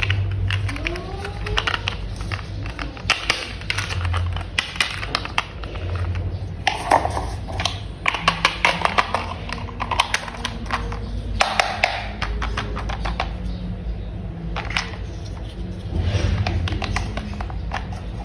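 Plastic toy parts clicking and clattering as they are handled and snapped together, in irregular runs of sharp clicks.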